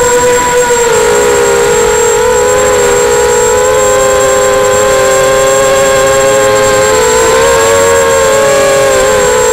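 Electric motors and propellers of an FPV aircraft, heard through its onboard camera: a loud, steady whine of several close tones whose pitch drifts up and down a little as the throttle changes. A faint, thin high whine sits steadily above it.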